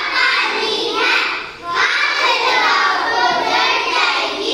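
A group of young girls singing a rhyme together in unison, in phrases with a short break about a second and a half in.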